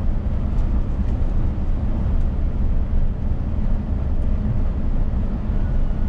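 Steady drone of a Scania S500 truck cruising on the highway, heard inside the cab: a low engine rumble under an even road noise.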